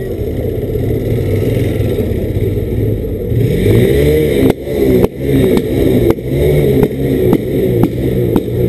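Motorcycle engine running at low speed in traffic, with wind noise; from about three and a half seconds in its pitch rises and falls with the throttle. From about four and a half seconds in, a sharp tick repeats about twice a second.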